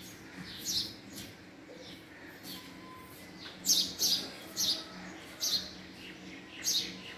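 House sparrow chirping: repeated short, sharp chirps, two faint ones early and then five loud ones spaced about half a second to a second apart in the second half.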